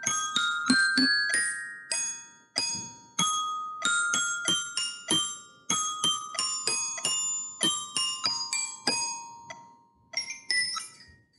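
A minuet played with mallets on a glockenspiel-style bell kit: a melody of single struck notes that keep ringing, stopping about nine and a half seconds in and fading. A few light clinks of the mallets on the bars follow near the end.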